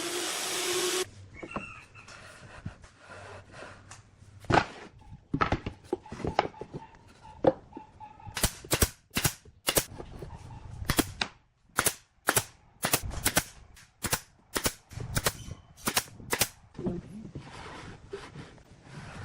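A power tool runs and cuts off about a second in. Scattered knocks follow, then a run of sharp strikes on wood, roughly one or two a second, that stops near the end.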